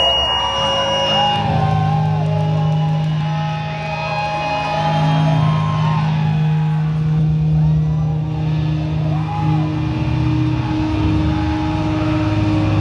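Live electric guitar and bass amplifiers holding a loud, steady low drone, with thin wavering feedback tones gliding above it; a higher held note joins about halfway through.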